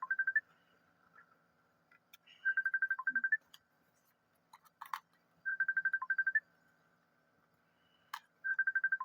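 Phone ringtone ringing: a quick run of about ten high electronic beeps that ends on a lower beep, repeating every three seconds. A few light clicks and knocks fall between the rings.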